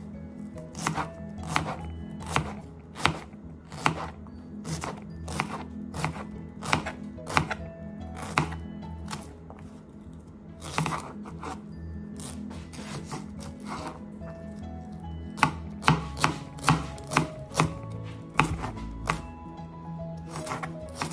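Kitchen knife dicing an onion on a plastic cutting board: sharp knocks of the blade striking the board, roughly one every half second to a second, with a lull near the middle and a quicker run after about fifteen seconds in.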